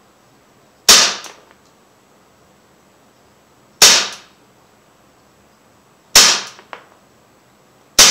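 Umarex Legends M712 CO2 blowback BB pistol fired on semi-auto: four sharp shots a few seconds apart, a fainter click following some of them.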